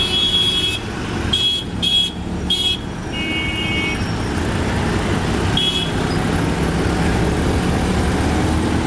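Auto-rickshaw engine and road noise running steadily, heard from inside the rickshaw, in busy city traffic. Vehicle horns give about five short, high toots in the first four seconds, one of them at a lower pitch, and one more about six seconds in.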